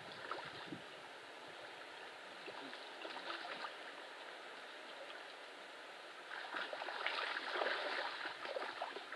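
Water gurgling and splashing, growing louder about six seconds in.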